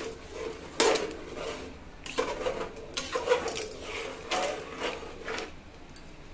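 Metal spoon stirring chicken and thick frying masala in an aluminium pressure-cooker pot, with irregular scrapes and knocks against the pot, about six over several seconds.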